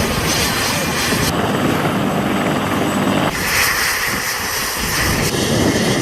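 AH-1Z Viper attack helicopter running, a loud, steady noise of turbine and rotor. It changes abruptly about a second in, again past three seconds, and near the end.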